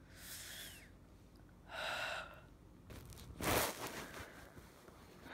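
A person gasping and breathing hard in three short bursts, about a second and a half apart, the last the loudest.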